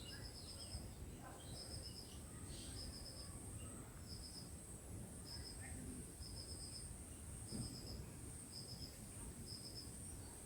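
Insects make a steady high drone, with a short burst of a few quick high pulses repeating about once a second. A few faint bird chirps come in the first few seconds.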